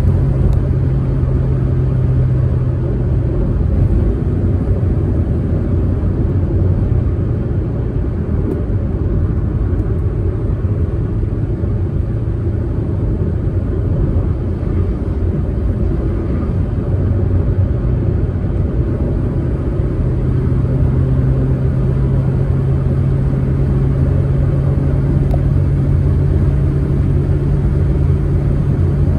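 Proton Saga car driving on the road: a steady engine hum over low tyre and road rumble. The engine note is strong at first, eases off after a few seconds and comes back strongly in the last third.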